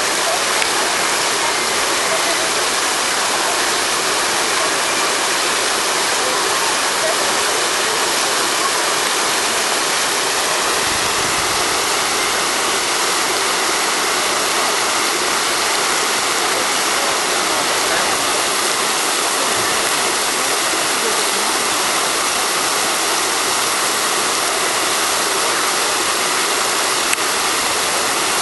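Fountain jets spraying and splashing back into the basin: a steady rush of falling water.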